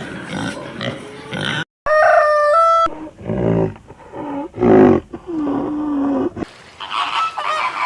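A string of different animal calls cut one after another: grunting at the start, a short high call after a brief silence, then several lower drawn-out calls, and squawking near the end.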